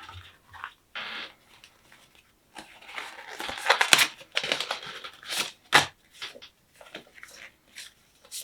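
Cardboard box and paper packaging being opened and handled: on-and-off rustling and crinkling with a few sharp taps and clicks.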